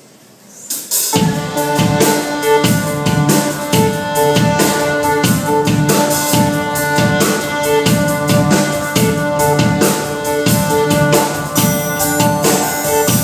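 A live band starts playing about a second in: a drum kit keeps a steady beat under held pitched notes, with a violin among the instruments.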